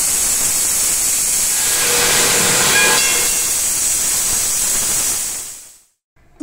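Pressure cooker letting off steam in a loud, steady hiss, with a few faint whistling tones about halfway through; the hiss fades out near the end.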